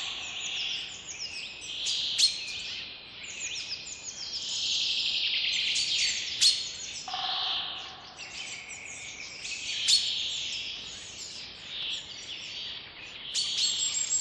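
Many birds chirping and twittering at once, with quick high chirps overlapping throughout, over a soft steady hiss of background noise. Four sharp clicks stand out as the loudest sounds, and a lower, longer call comes about seven seconds in.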